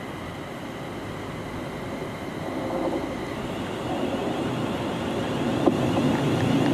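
Electric train on the West Coast Main Line approaching, its rumble growing steadily louder from about two seconds in, with one sharp click near the end.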